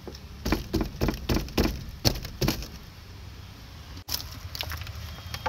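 A quick run of about eight sharp clicks and knocks in the first two and a half seconds, from hands setting a 12-volt car battery in place and working at its terminals and clamp.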